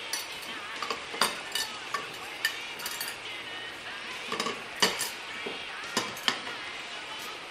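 Tableware clinking and clattering as items are picked up and carried: about a dozen sharp clinks at irregular intervals over a steady hiss.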